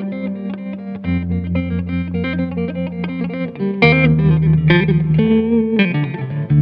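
Background music: a guitar track with quick plucked electric-guitar notes over held bass notes.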